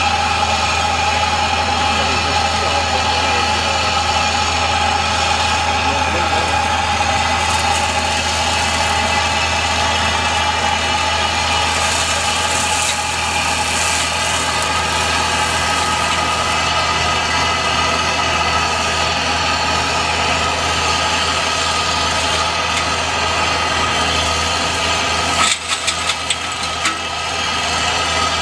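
Road-rail excavator's diesel engine running steadily, with a brief dip in level about 25 seconds in.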